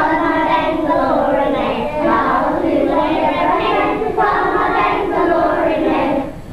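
A class of young prep-grade children singing a song together in sustained phrases; the singing stops near the end.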